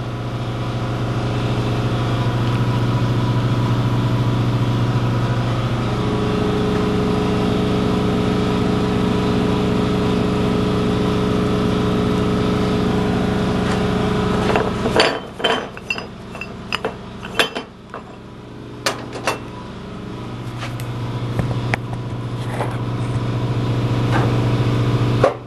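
Electric air compressor running with a steady hum. About fifteen seconds in the hum drops away and several metal clinks and knocks sound, then the hum builds back up near the end.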